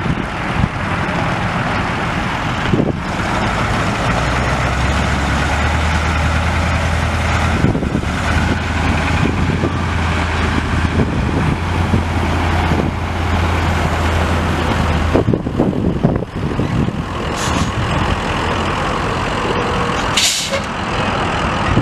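The 1984 Ford F800 truck's Caterpillar 3208 V8 diesel engine running, with a steady low hum through the middle, and a brief hiss near the end.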